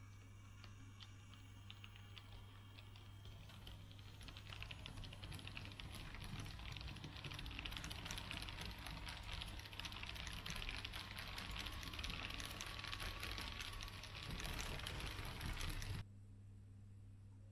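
Model train rolling past, its wheels making a rapid clicking over the rail joints and points. The clicking thickens and grows louder, then cuts off suddenly near the end.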